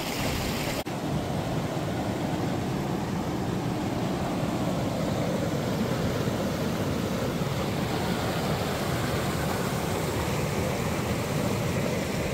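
Steady rushing noise with no distinct events. It dips briefly about a second in, then runs on evenly.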